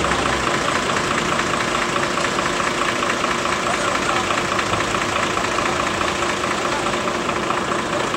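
Heavy truck's diesel engine idling steadily, with people's voices around it.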